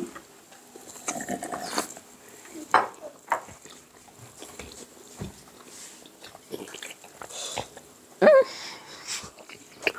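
People wolfing down bread, chewing and swallowing close to a clip-on microphone, with scattered small clicks and mouth noises. About eight seconds in, a short vocal sound drops in pitch.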